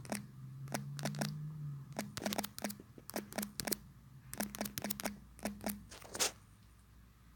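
Fingertip taps on a phone's touchscreen keyboard while a search phrase is typed: about twenty quick, irregular clicks over six seconds, each with a brief low buzz.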